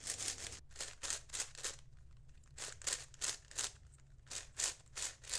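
A YJ magnetic 5x5 speed cube being turned quickly by hand: its plastic layers give short clicking swishes. They come in three quick runs with brief pauses between.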